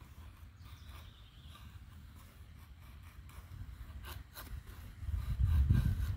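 Steel knife blade scraping and shaving a dry wooden stick, a few short strokes about four seconds in. A low rumble on the microphone grows louder near the end.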